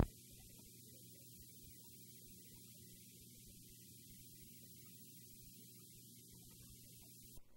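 Faint, steady electrical hum with a high hiss from a blank stretch of videotape. There is a brief click near the end, after which the hiss drops away.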